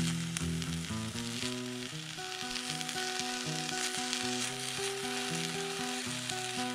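Perch, potatoes and onions frying in a cast iron pan, a steady sizzle. Soft instrumental background music of held notes plays along with it.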